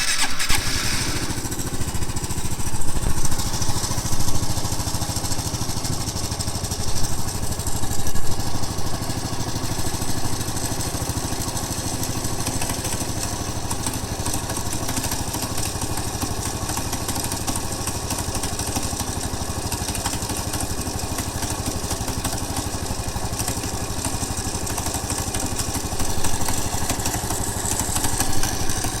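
Honda Cross Cub's single-cylinder four-stroke engine running, with an abnormal mechanical noise from inside the engine that the owner suspects may be the cam chain, though he is not sure. It briefly gets louder a few times.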